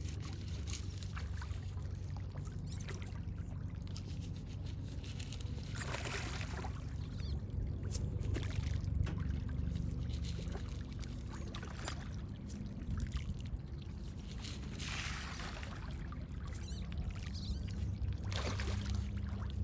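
Water splashing and trickling as turtles feed, with three louder splashes, about six seconds in, around fifteen seconds and near the end, scattered small clicks, and a steady low hum underneath.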